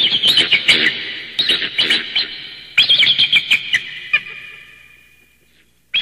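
Quick bursts of bird-like chirping, several a second, with a reverberant tail. The chirping dies away to near silence about four seconds in and starts again at the very end.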